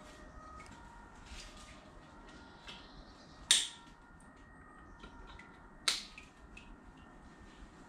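Two sharp plastic clicks about two and a half seconds apart, from small wire connectors being pushed together and snapping into place, with fainter handling ticks between them.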